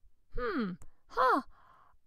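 A woman's voice making two short, wordless, sigh-like exclamations, each falling in pitch, with a small click between them.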